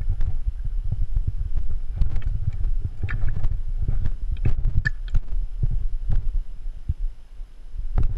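Wind buffeting a body-worn GoPro's microphone as a steady low rumble that eases briefly near the end, with scattered light knocks and clicks from carried gear.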